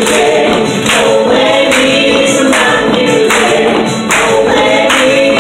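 Live honky-tonk song: several performers singing together over music, with hand claps on the beat.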